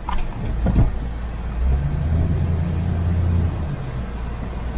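Pickup truck driving slowly, heard from inside the cab: a low engine hum that swells about two seconds in and settles back about a second and a half later, with a light knock or bump under a second in.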